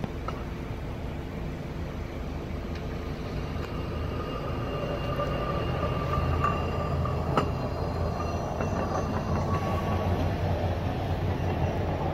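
Hi-rail pickup truck running along the track on its steel guide wheels: a steady rumble of engine and wheels on rail, with a thin steady whine, growing louder as it approaches. A single sharp clack about seven seconds in.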